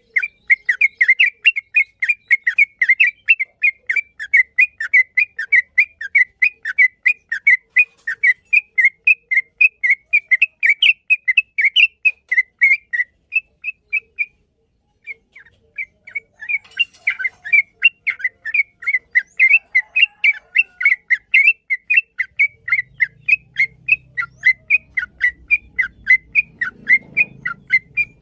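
Yellow-vented bulbul (trucukan) singing a long rapid-fire song, short sharp whistled notes at about three to four a second, with a pause of about a second halfway through.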